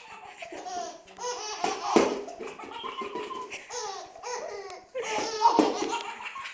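A baby laughing in a fit of giggles, in repeated bursts, the loudest just before the end.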